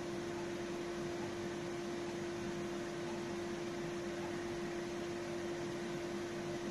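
Steady machinery hum: one constant mid-pitched tone over an even hiss, holding level throughout.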